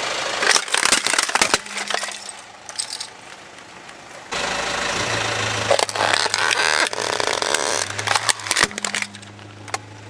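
A car driving slowly over plastic toy vehicles: the engine running and the tyre grinding on gritty pavement, with sharp cracks and crunches of the plastic breaking under the wheel. It comes in two passes, the second starting about four seconds in.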